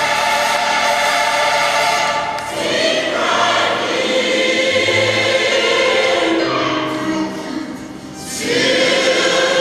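Large mixed gospel choir singing held chords in harmony, moving to a new chord about two seconds in, then dipping briefly about eight seconds in before swelling back at full volume.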